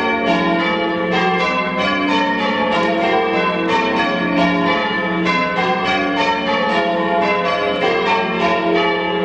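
A heavy ring of six church bells, cast by Richard Keene in 1676 with the tenor in F, rung full-circle in changes: strikes follow one another in an even, unbroken rhythm, each bell's tone ringing on under the next.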